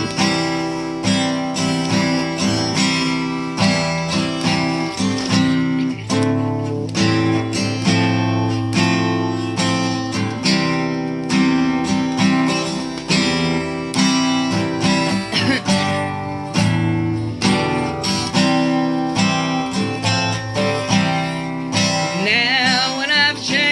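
Acoustic guitar strumming chords in a steady rhythm, an instrumental break in a gospel song.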